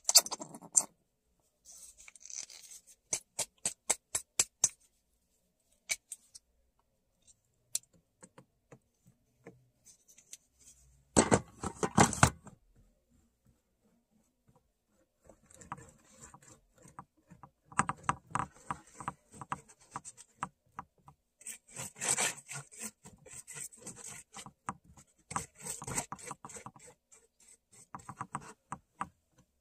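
Rubbing and scraping as white paint is worked over a rough, crumpled-paper textured board, in repeated strokes through the second half. Before that come scattered sharp clicks and taps, with a quick run of them about three to four seconds in, and a louder noisy rustle about eleven seconds in.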